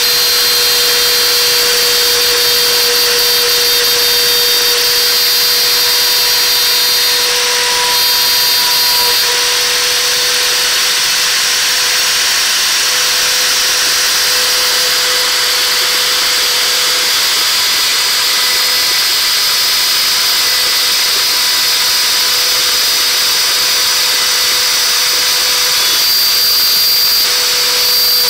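INGCO trim router working as the spindle of a homemade CNC router, running at full speed with a steady high whine while its small bit mills a groove into a grey plastic sheet. The tone and cutting noise shift briefly about eight seconds in and again near the end.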